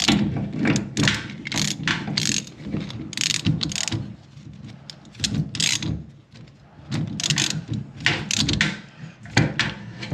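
Ratcheting basin wrench on a long extension bar clicking in quick strokes as it tightens a bath tap's connector nut from beneath. The strokes come in runs, with a short lull from about four to six seconds in.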